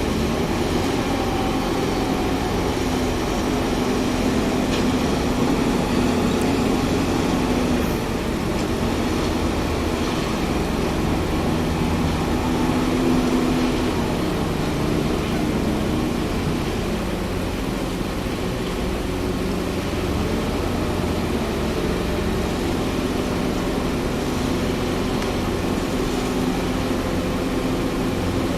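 Engines of a concrete mixer and concrete pump machine running steadily under load, a continuous loud drone with a steady low hum.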